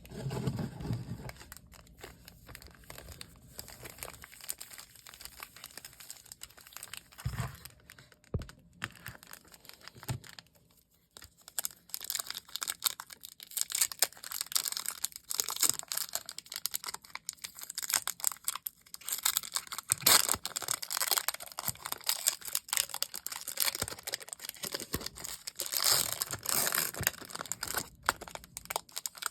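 Packaging being torn open and crinkled by hand. There are scattered handling knocks at first, then dense, continuous crinkling from about twelve seconds in.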